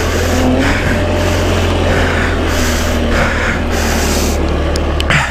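Small Chinese scooter engine running under throttle while being ridden over snow, with a hiss that swells and fades about once a second over the engine drone.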